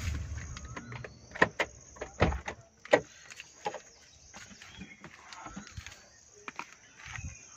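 Car slowing to a crawl on a rough rural road: the engine and tyre rumble fades away. That leaves a quiet cabin with a few sharp knocks and clicks.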